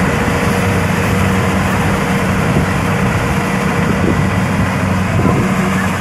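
Kubota DC-70 combine harvester's diesel engine running steadily as the machine harvests rice, a constant low drone with a rushing mechanical noise over it.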